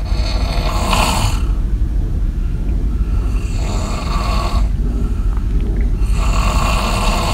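A person snoring loudly in sleep, three rasping snores about three seconds apart over a steady low rumble.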